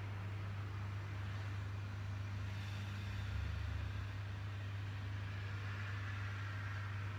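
Steady low hum with an even hiss over it, unchanging throughout: background room or equipment noise.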